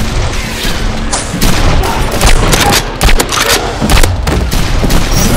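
A fast, irregular run of sharp gunshot-like bangs, loud and close together, over background music.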